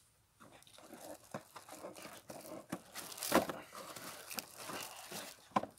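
Molded paper-pulp packaging insert and cardboard box being handled and pulled apart: irregular rustling, scraping and crinkling. There is a louder crunch about three seconds in and a sharp click near the end.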